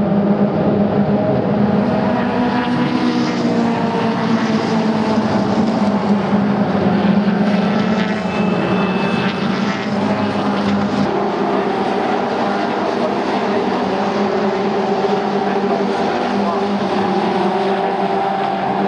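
Several Caterham Seven race cars passing at racing speed, their engine and exhaust notes overlapping into one steady sound that shifts a little in pitch as the cars go by.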